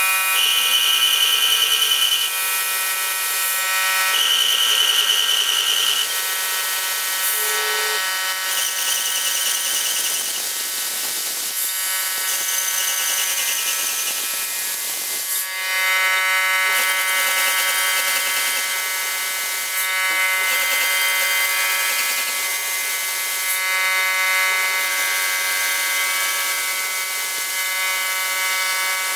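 A high-speed CNC router spindle milling aluminium plate with a small carbide endmill: a steady high whine and cutting screech, with compressed-air mist blasting at the cut. A sharper cutting tone comes and goes every couple of seconds as the tool moves along its path, and the whole sound shifts about halfway through.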